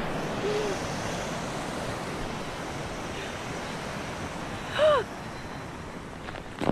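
Steady rushing of a mountain creek or small waterfall tumbling through a snowy gully. A short vocal sound with a dipping pitch comes about five seconds in.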